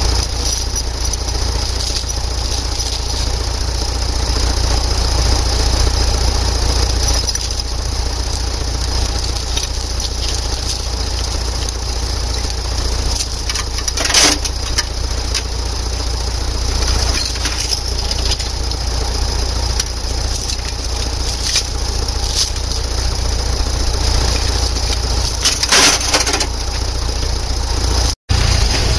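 Engine of a tracked machine running steadily under load with a deep rumble, with sharp cracks about halfway through and again near the end. The sound cuts out for an instant just before the end.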